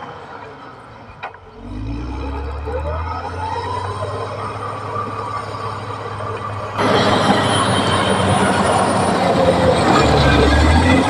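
Caterpillar D6R XL bulldozer's diesel engine revving up, its pitch rising over a couple of seconds, with the clank of its steel tracks. About seven seconds in the noise jumps suddenly louder.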